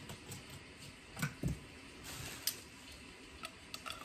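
Faint handling noises of someone rummaging: scattered light clicks and taps, with a few sharper clicks near the end.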